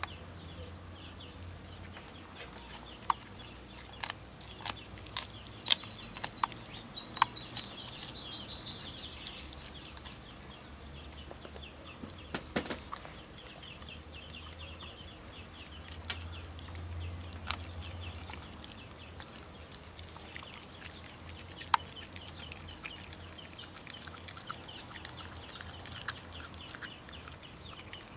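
A young Australian kelpie gnawing and chewing on lamb spareribs: scattered crunches and clicks of teeth on meat and bone. A bird chirps for a few seconds about five seconds in.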